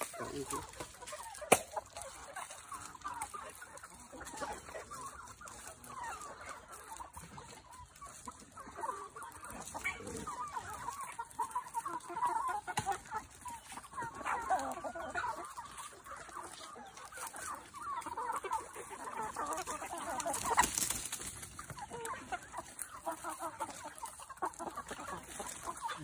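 A flock of free-range chickens clucking continuously as they feed, with a single sharp click about a second and a half in.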